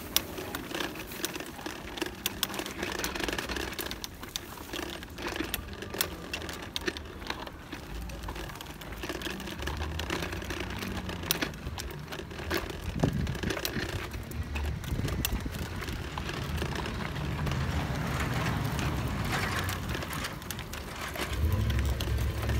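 Toddler's plastic tricycle rolling over a concrete sidewalk, its wheels and frame rattling with many irregular clicks and knocks. A low rumble grows louder near the end.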